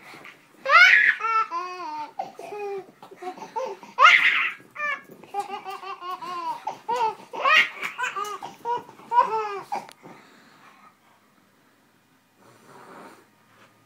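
Baby laughing hard in several long runs of quick, high-pitched laugh syllables, stopping about ten seconds in.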